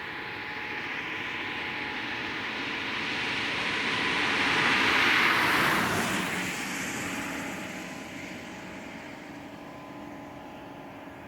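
A road vehicle passing by: a swell of tyre and engine noise that builds for about five seconds, peaks just past the middle, and fades away.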